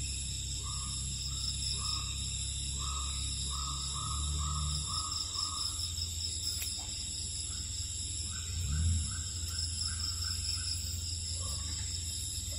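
Wild-animal ambience soundtrack: a steady high insect-like drone, a short call repeated about twice a second in two runs, and a low rumble underneath.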